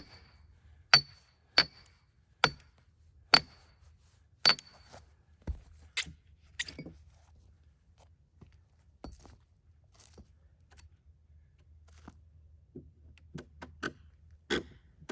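A hammer striking a steel splitting wedge driven into a cedar log: about eight sharp ringing metal blows, roughly one a second, in the first seven seconds, then scattered fainter clicks and one more blow near the end.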